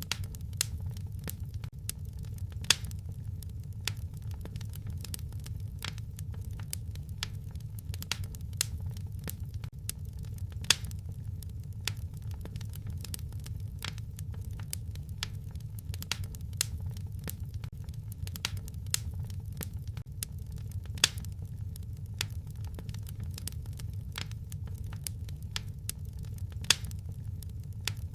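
Wood fire crackling in a fireplace: irregular sharp pops and snaps, a few much louder than the rest, over a steady low rumble.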